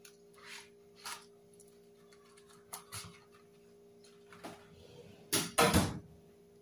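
Scattered light clicks and knocks of off-camera kitchen handling, then a louder clatter about five and a half seconds in, over a steady electrical hum.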